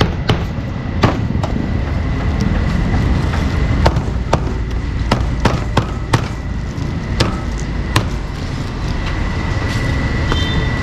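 Cleaver chopping meat on a chopping block, sharp irregular knocks roughly once a second, over a steady low rumble of street noise.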